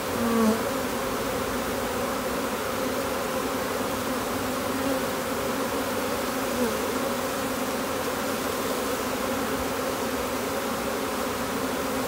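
A secondary swarm of honey bees buzzing in a steady, many-toned hum as the swarm settles onto the frames of an open hive box.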